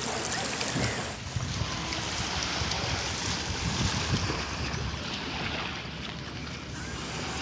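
Small waves washing onto a sandy beach, with wind blowing on the microphone.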